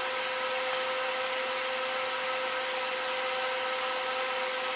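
A steady, even hiss with a constant mid-pitched hum tone over it, unchanging throughout.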